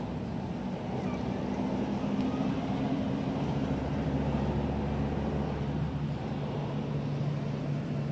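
A motor vehicle engine running steadily with a low hum, its pitch dipping slightly after about six seconds.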